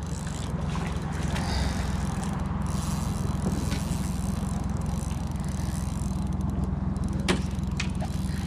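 Boat motor running steadily with a low hum, with a couple of short sharp clicks near the end.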